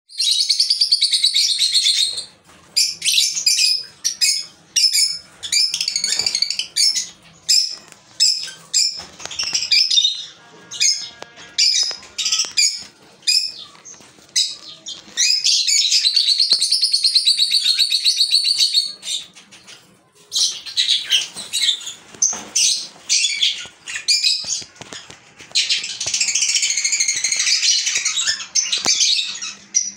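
Black-eyed albino lovebirds chattering: rapid, high chirping in runs of a few seconds at a time, broken by shorter chirps and brief pauses.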